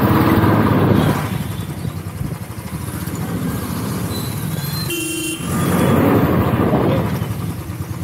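Royal Enfield Classic 350's single-cylinder engine running at low speed in slow traffic, rising and falling with the throttle. A short vehicle horn toot sounds about five seconds in.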